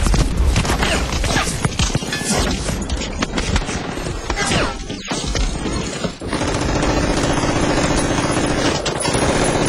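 Gunfire: a rapid string of shots through the first half. After a brief lull about five seconds in, a steady droning tone takes over.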